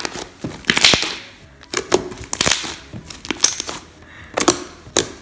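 Soft red fluffy slime being squeezed and folded by hand, making clusters of sharp wet clicks and pops about once a second as air pockets burst.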